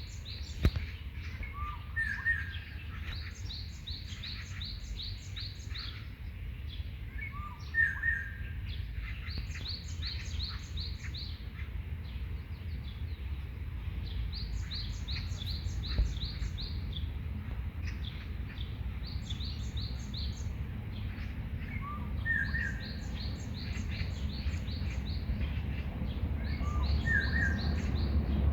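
A songbird singing the same phrase over and over: a quick run of about eight to ten high, thin notes lasting about two seconds, repeated every few seconds. A second bird gives short lower calls now and then, over a steady low rumble.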